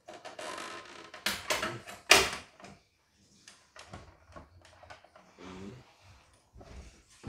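White plastic housing of a CNY embroidery machine being prised open by hand: scraping, then a run of sharp snaps and clicks as the cover's catches let go, the loudest about two seconds in, followed by quieter rattling of the loosened cover.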